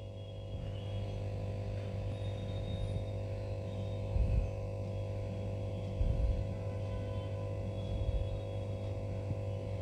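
A steady electrical hum with a few steady tones above it, and dull low thumps about four and six seconds in.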